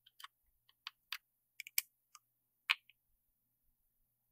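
Scattered light clicks and taps, about seven in the first three seconds, from a small screwdriver tightening M3 screws into a small metal SSD enclosure.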